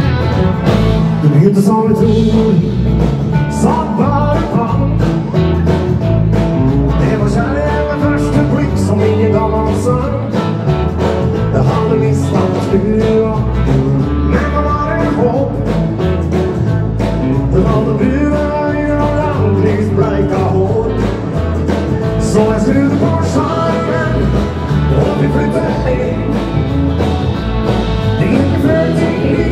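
Live band playing rock-and-roll dance music: drum kit, bass guitar and electric and acoustic-electric guitars, with a man singing at times.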